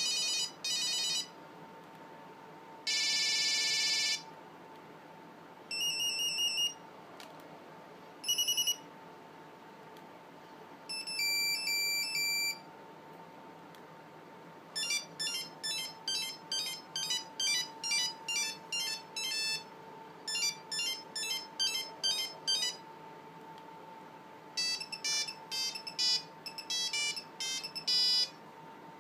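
Nokia 5510's built-in monophonic ringtones and alert tones previewed one after another through its speaker: several short beeps and chirps, each a second or two long, then two longer snippets of quick-note ringtone melodies.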